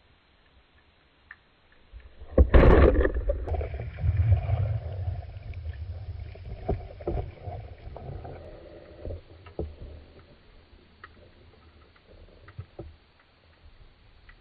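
Underwater recording: a speargun fires with a sudden loud thump about two seconds in. It is followed by several seconds of deep, churning water rumble with scattered knocks from the struggle with the speared sea bass, slowly dying down.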